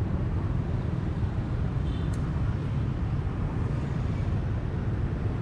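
Street traffic: a steady low rumble of passing vehicles, with a short faint high beep about two seconds in.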